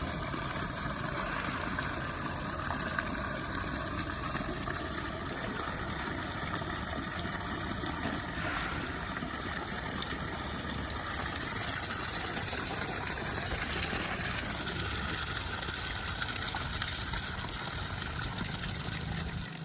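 Fire pump running steadily, a continuous mechanical noise with no change in speed.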